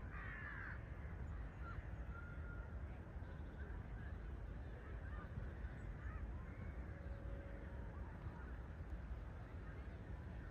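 Birds calling, with repeated honking calls, over a steady low rumble; a cluster of calls comes right at the start.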